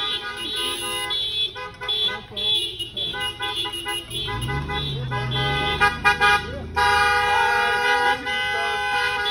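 Several car horns honking in repeated beeps and longer toots as cars drive slowly past, with a car engine rumbling by about halfway through.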